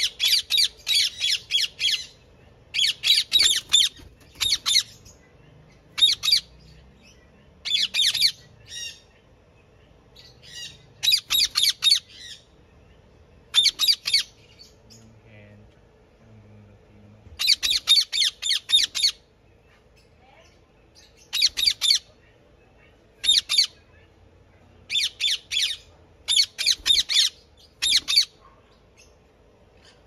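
Indian ringneck parakeets squawking: loud, harsh calls in short bursts of rapid repeated notes, about a dozen bursts with pauses of a second or two between them.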